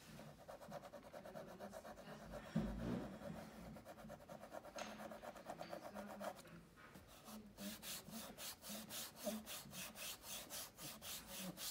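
Mohawk 3-in-1 wood repair stick rubbed against a stained wooden door frame: a fast, fine scraping for about six seconds, then firmer back-and-forth rubbing strokes, about three to four a second, over the repair.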